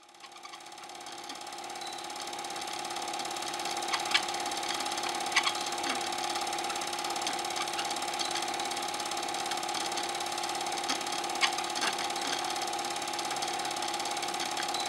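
8mm cine projector running: a steady mechanical whirr and rapid clatter over a motor hum, fading in over the first few seconds, with a few sharp clicks about four, five and eleven seconds in.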